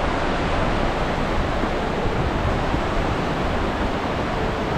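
Steady rushing of a waterfall's falling water, an even unbroken noise.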